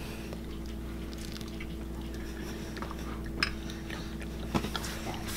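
Quiet room tone with a steady low hum and a few soft clicks, as a buttered slice of bread is picked up and bitten into near the end.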